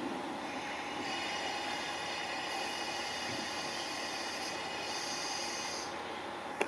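A train running on the rails, with a high thin squeal from about a second in until near the end, and a short click at the very end.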